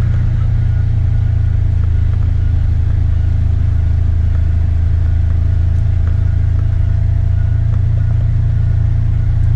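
Side-by-side UTV engine running at a steady speed while driving, a constant low drone with a faint steady whine above it.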